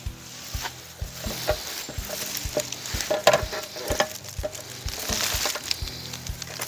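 Crackly rustling and small clicks from hands handling a windscreen bolt and parts while thread locker is applied, over background music with a steady low beat about twice a second.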